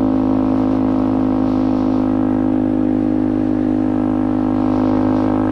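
KTM motorcycle engine running at steady, constant revs while cruising, with no rise or fall in pitch.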